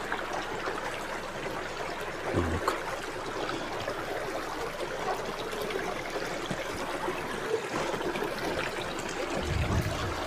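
Water running steadily along a small stone-and-concrete channel in a mountain village lane, a continuous trickling stream. A short low bump comes about two and a half seconds in, and a low rumble builds near the end.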